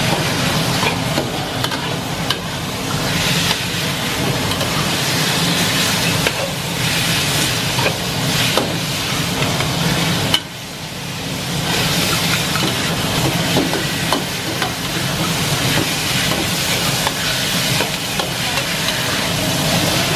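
Chicken pieces sizzling in hot oil in a steel wok over high heat, with a metal spatula scraping and knocking against the wok as it is stirred. The sizzle drops suddenly about halfway through, then builds back up.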